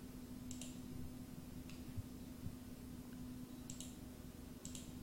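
Four short computer mouse clicks, a second or two apart, over a faint steady hum.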